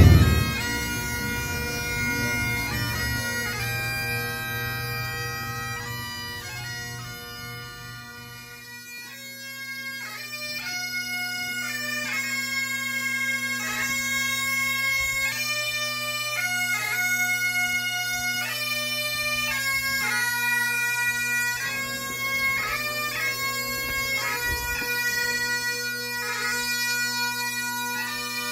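Bagpipes playing a slow lament over steady drones, the melody moving from note to note. A low rumble under the first several seconds fades out at about eight seconds in.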